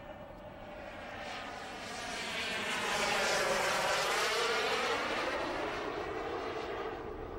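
Turbine engine of a radio-controlled model jet flying past. Its rushing jet noise swells to a peak about three to four seconds in, then eases slightly as the plane moves away.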